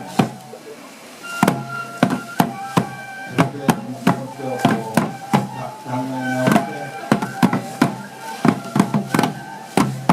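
Shishimai lion-dance music: a bamboo transverse flute holds and changes high notes while small drums are struck in quick, irregular strokes, two or three a second and sometimes in clusters.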